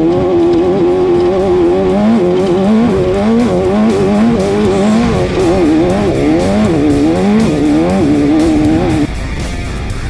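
Off-road race car engine revving up and down hard, with guitar music underneath. The engine drops out about nine seconds in, leaving the music.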